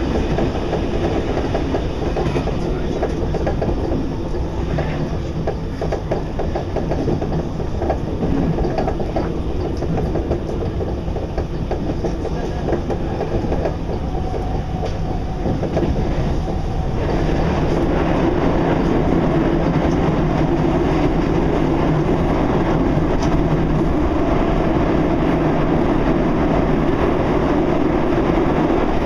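RER commuter train running on the rails: a steady rumble with light rattling and clicking from the wheels and car. About halfway through, the noise grows louder and smoother.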